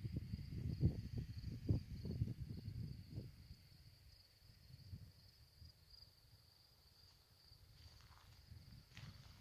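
Insects in the grass singing in a steady, unbroken high trill. Wind gusts on the microphone over the first three seconds or so.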